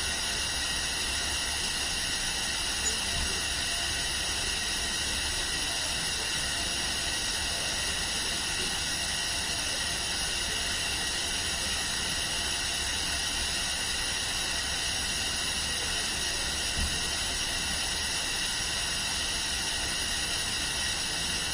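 Steady hospital room tone: an even hiss with faint, steady high-pitched tones in it. Two small knocks, one a few seconds in and one late on.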